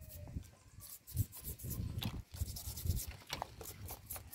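Toothbrush bristles scrubbing the hard, spiny shell of a king crab sitting in a bowl of water, in quick, irregular scratchy strokes.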